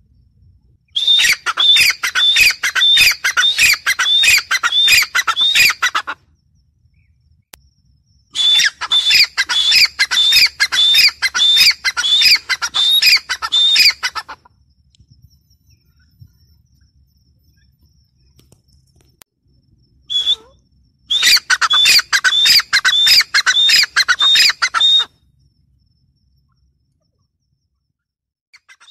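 Grey francolin calling: three bouts of about five seconds each, every bout a fast run of loud, high-pitched repeated notes, separated by pauses, with a single short note just before the third bout.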